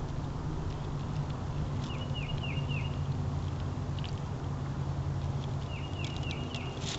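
A small songbird calling a quick run of four chirps, twice, a few seconds apart, over a steady low rumble and a few faint clicks.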